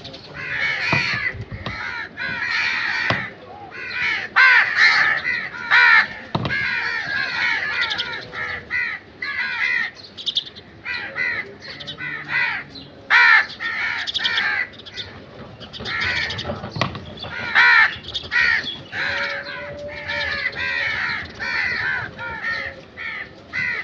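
A flock of crows cawing, many calls overlapping almost without a break, with a few louder caws standing out.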